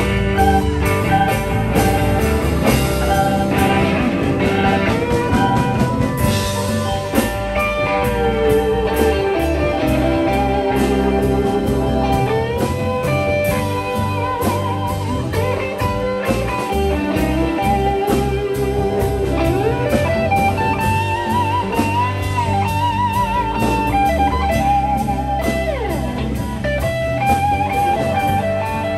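Live blues band playing an instrumental passage: a lead guitar solo of sustained, bent and wavering notes over bass and a drum kit.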